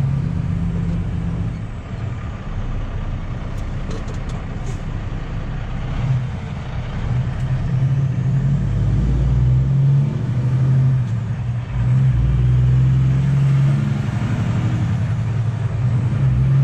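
Semi truck's diesel engine running with a steady low drone, growing louder about eight seconds in and staying up.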